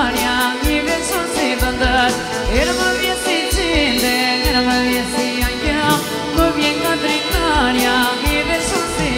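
Albanian wedding band music: a lead melody with sliding, ornamented notes over a steady drum beat.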